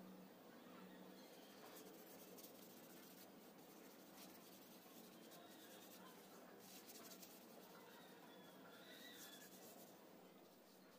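Faint, scratchy rubbing of a hand and cloth over a freshly carved wooden spoon, coming and going in short spells, as the wood is finished by hand.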